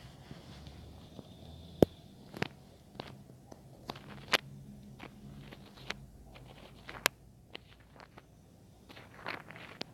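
Irregular, sharp clicks and taps picked up close on a miniature microphone: ASMR trigger sounds. The loudest come about two seconds in and about seven seconds in.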